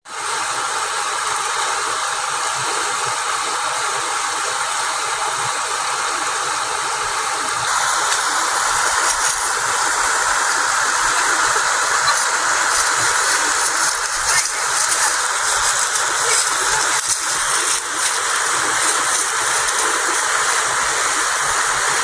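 A mountain river rushing over rocks and rapids: a steady, loud water noise that grows a little louder about eight seconds in.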